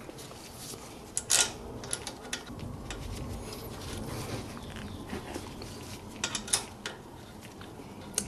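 Scattered clicks and knocks of a 2010 Toyota Prius front brake caliper being pushed into place and its bolt fitted by hand. The loudest knock comes about a second in, and a quick cluster follows about six and a half seconds in.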